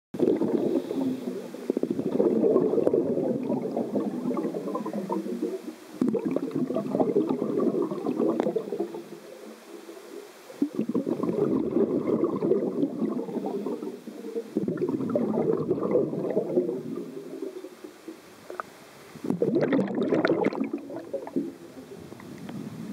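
Pool water churning and bubbling, heard underwater, muffled and dull. It comes in surges of a few seconds with quieter dips between, and about twenty seconds in there is a brighter, fizzing burst of bubbles.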